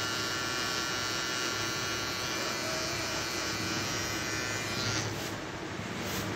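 Cordless electric beard trimmer buzzing steadily as it cuts the beard along the neck, then cutting off about five seconds in.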